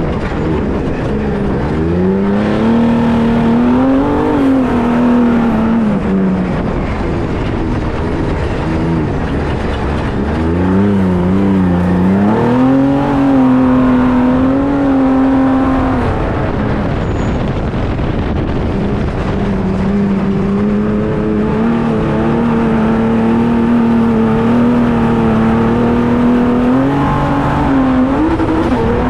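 Trophy truck's Ford EcoBoost turbocharged engine running hard, its note climbing and dropping several times as it accelerates and comes off the throttle, then holding fairly steady for a long stretch before climbing again near the end.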